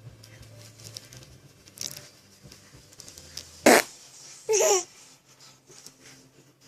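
A loud, short fart sound, followed about a second later by a baby's brief wavering laugh.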